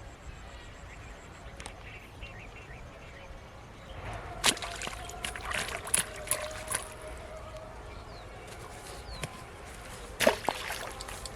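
Water splashing and sloshing in short bursts, starting about four seconds in and coming again, louder, near the end.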